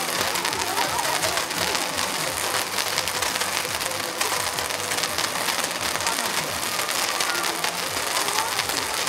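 Several toy firework fountains spraying sparks: a steady hiss thick with fine crackling, with no loud bangs.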